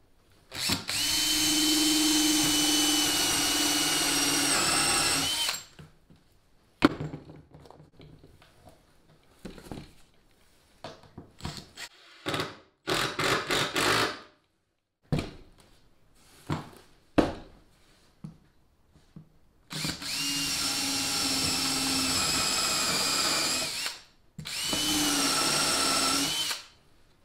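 Makita cordless drill running in three steady bursts, one of about five seconds at the start and two shorter ones of about four and two and a half seconds near the end, driving stainless screws through plywood into a wooden butt block. Scattered clicks and knocks of handling fall in the gap between the runs.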